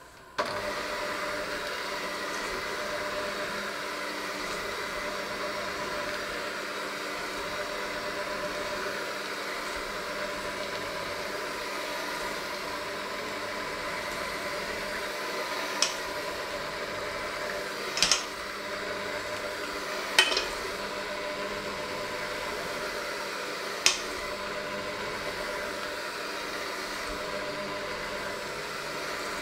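Handheld electric mixer switching on and running steadily with a whine, its beaters working a crumbly dough in a stainless steel bowl. The beaters clank sharply against the bowl four times in the second half.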